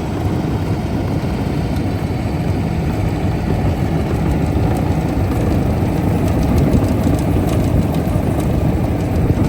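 A heavy engine running steadily.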